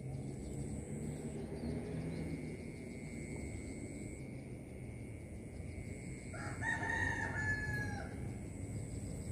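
A rooster crowing once, about seven seconds in, one call lasting about a second and a half. Under it, a steady low rumble and a thin, steady high whine.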